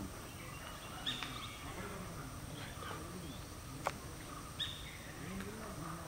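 Forest background with short high bird calls about a second in and again near five seconds, and a single sharp click just before four seconds.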